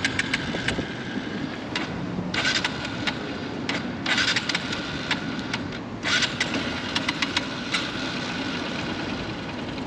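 Honda XR150L motorcycle engine being tried again and again while the bike is out of fuel. It runs rough underneath, with three louder surges about two seconds apart, and it won't keep going.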